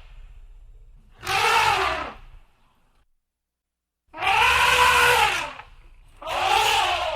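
Elephant trumpeting: three loud, brassy calls whose pitch arches up and falls back, the middle one the longest, with a low rumble between calls.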